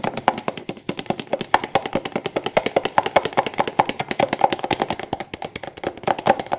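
A utensil stirring a thick, creamy slime mixture of shampoo and toothpaste in a bowl, knocking against the bowl in rapid, even taps several times a second.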